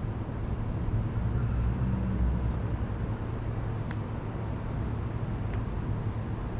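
Low rumble of road traffic, swelling about a second or two in as a vehicle passes, with a couple of faint clicks.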